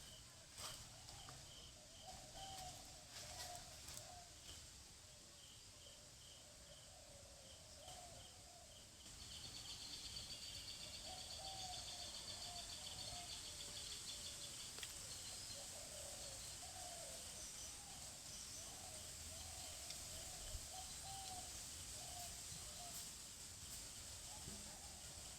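Faint rural ambience: birds calling repeatedly throughout, over a light regular ticking of insects. A steady high insect drone comes in about nine seconds in.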